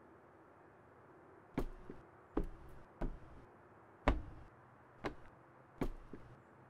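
Slow footsteps: six separate sharp thuds, under a second to about a second apart, the fourth the loudest.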